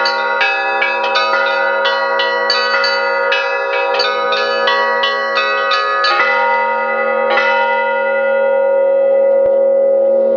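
Russian Orthodox church bells rung by hand: quick strikes on the smaller bells, about three a second, over the steady ring of deeper bells. The striking thins out about six seconds in, and the bells are left ringing on.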